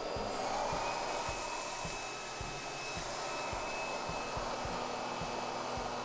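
Xiaomi Roidmi F8 cordless stick vacuum running steadily with a faint whine that rises a little just after the start, as its brush head works over the floor. Soft low taps come a few times a second.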